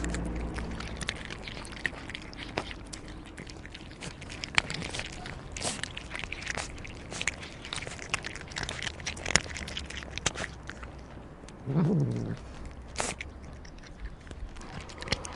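Cats eating, with a steady run of small irregular clicking crunches of chewing and biting. About twelve seconds in there is one short, low cat call, the loudest sound in the stretch.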